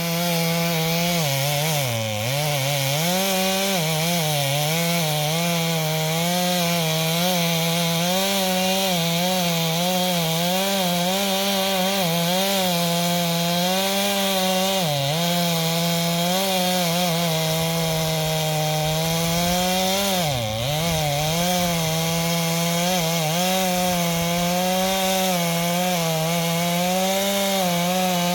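Brand-new Stihl two-stroke chainsaw running at high revs while cutting into the trunk of a dead hardwood tree being felled. The engine pitch dips briefly a few times as the bar takes the load, around two seconds in, midway through and about two-thirds through, then picks back up.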